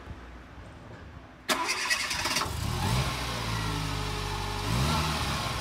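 Fiat Panda 900ie engine, freshly rebuilt with new piston rings, cranked by the starter about a second and a half in. It catches, rises and settles into a steady idle, with a brief blip of revs near the end.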